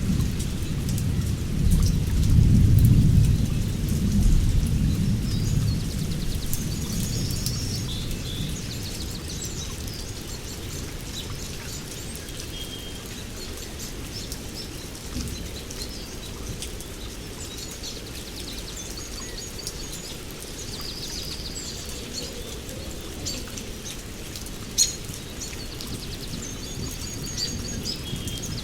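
Steady heavy rain with a roll of thunder rumbling through the first few seconds and dying away. Birds chirp here and there over the rain, and a single sharp tap stands out about three-quarters of the way through.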